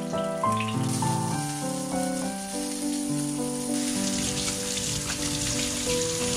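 Background music over a steady hiss of food sizzling in a pan; the hiss grows louder in the middle.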